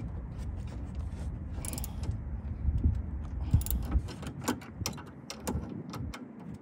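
Socket ratchet wrench clicking and metal clinking while the rear brake caliper bolts are snugged down, over a low rumble that drops away about four seconds in.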